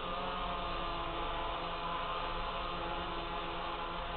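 DJI F550 hexacopter's six brushless motors and propellers running as it hovers and flies low, a steady multi-toned hum with the pitch wavering slightly.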